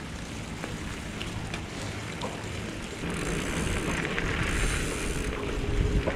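Mountain bike riding along a dirt forest trail, heard through a GoPro's microphone: wind rushing over the mic with the rumble of the tyres, and small clicks and rattles from the bike. It gets louder about three seconds in as the bike picks up speed.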